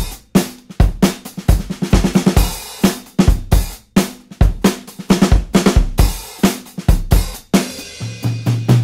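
Background rock music carried by a drum kit alone: a steady beat of kick, snare, hi-hat and cymbal hits. A low bass note comes in near the end.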